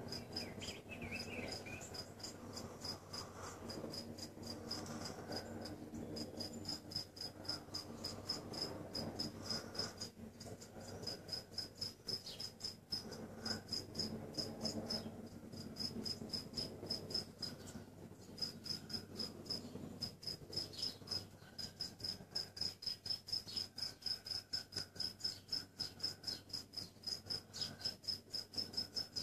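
Insect chirping: a steady run of short, high-pitched chirps, about four a second, with a few brief pauses.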